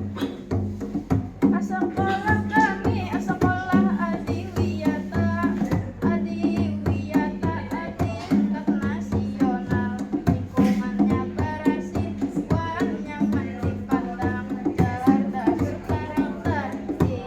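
Live music rehearsal: drums and hand percussion keep a busy rhythm over a steady low note, while a wavering melody line runs above.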